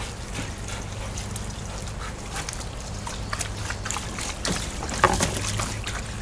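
Water splashing and trickling in a kiddie pool as dogs move about in it, with irregular small splashes and one sharper splash about five seconds in.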